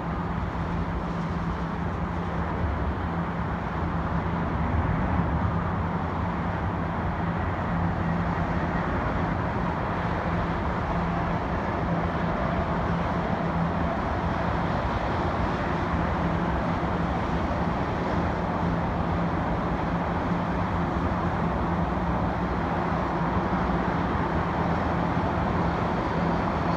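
Steady mix of road traffic and airport ground noise, with a constant low hum running under it.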